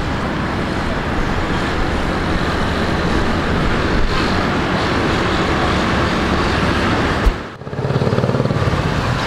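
Steady rumble of an Ilyushin Il-76TD's four Soloviev turbofan engines as the freighter taxis. The sound drops out briefly about seven and a half seconds in, then a steady engine hum resumes.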